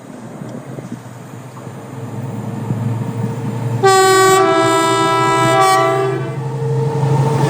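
Colas Rail Class 70 diesel locomotive running through at speed, its GE PowerHaul V16 engine growing louder as it nears. About four seconds in it sounds its two-tone horn for about two and a half seconds.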